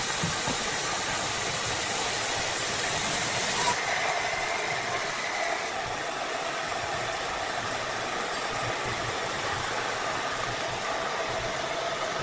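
Steady mill machinery noise with a hiss. About four seconds in, the high hiss cuts off abruptly and the noise drops a little, then runs on evenly.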